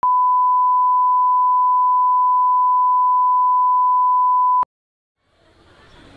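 Steady 1 kHz reference test tone played over colour bars, a single pure tone that cuts off abruptly about four and a half seconds in. After a moment of silence, a faint sound begins to fade in near the end.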